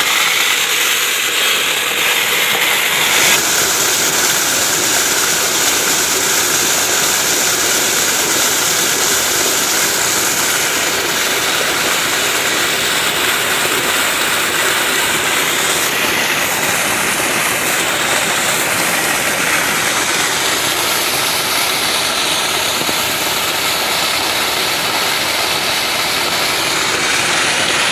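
Steady loud rush of a thick jet of pumped well water pouring from an outlet pipe and splashing into a water channel.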